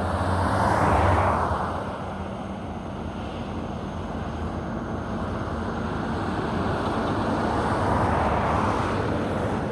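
Steady road-traffic noise, swelling about a second in and again near the end as vehicles go past.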